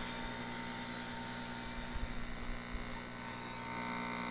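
Steady mains hum and buzz with a thin steady tone over it, from a tube television's audio while its sound section is fed an injected 4.5 MHz test tone. The tone comes through weak, the sign of a fault in the sound IF detector stage.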